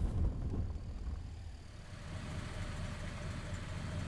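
Taxi car engine running with a low, steady rumble as the car draws up. It dips in the middle and grows a little louder toward the end.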